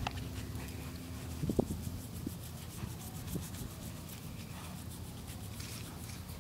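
Toothbrush bristles scrubbing over a turtle's hard shell, light and scratchy, with a few soft knocks about one and a half seconds in over a steady low rumble.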